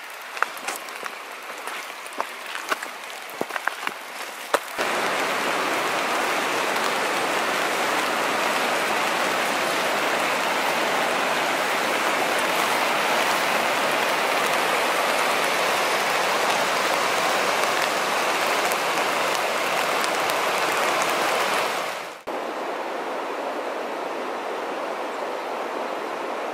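Footsteps on a wet, leaf-strewn dirt trail, sharp scuffs and clicks for the first few seconds. Then comes a sudden cut to loud, steady rushing water flowing over bedrock. Near the end it drops briefly and continues as a slightly quieter steady rush.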